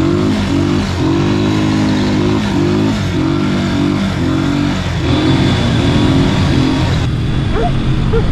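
Quad bike (ATV) engine running over sand, its note rising and falling again and again as the throttle is opened and eased.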